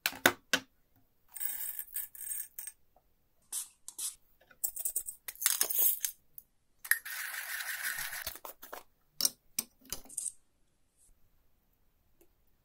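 Espresso prep handling: sharp clicks and taps, then coffee beans rattling in short bursts as they are poured into a coffee grinder. A little past halfway the grinder runs for about a second and a half, followed by a few more clicks.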